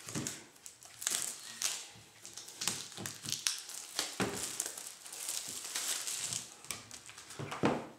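Clear plastic shrink-wrap being peeled off a paperback comic book and crumpled in the hand, crinkling in short irregular crackles, the loudest near the end.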